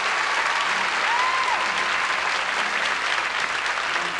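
Audience applauding steadily, with a short high tone that rises and falls about a second in.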